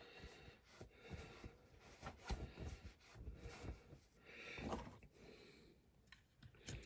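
Faint, scattered handling sounds of small-scale model work: soft clicks and brief rustles, with a slightly stronger knock about two seconds in.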